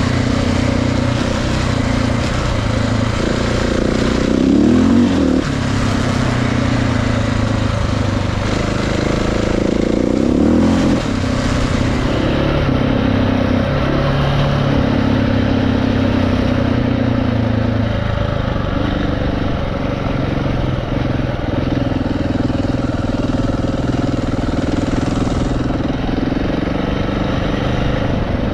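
Motorcycle engine running under way on a gravel road. Its pitch climbs and then drops back twice, about five and about eleven seconds in, as the bike accelerates through the gears. A steady rush of wind and road noise runs underneath.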